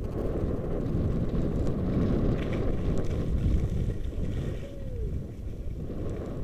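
Wind rushing over a body-mounted camera's microphone as it skis downhill: a steady low rumble with no distinct events.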